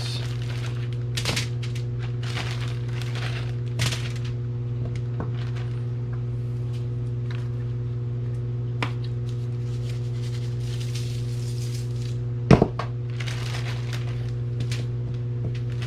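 Scattered clicks, clinks and crackles of ingredients being handled and set down while a hobo dinner is assembled, with one louder sharp knock a little past the middle. A steady low hum runs underneath.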